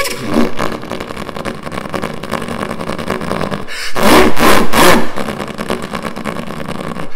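A man's voice imitating a carbureted car engine through a paper-towel tube. It idles roughly, then revs up loudly about four seconds in and falls back to idle about a second later.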